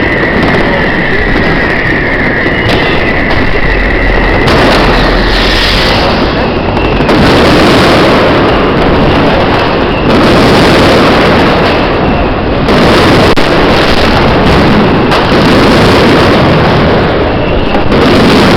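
New Year fireworks and firecrackers going off in a dense, continuous barrage, loud enough to overload the recording. A steady high whistle sounds for about the first four seconds.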